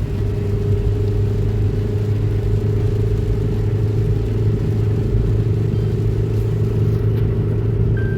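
Car engine and road noise while driving: a steady low drone with a constant hum.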